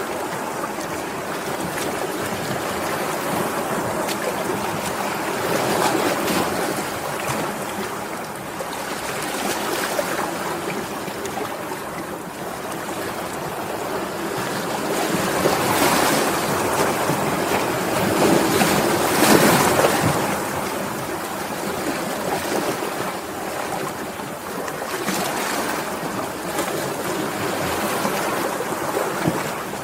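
Sea waves washing in and breaking: a continuous rush of water that swells and eases every few seconds, with its loudest surges a little past the middle.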